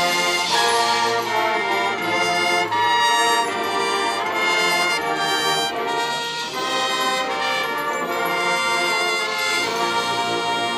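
High school marching band's brass section playing held chords that change every second or two.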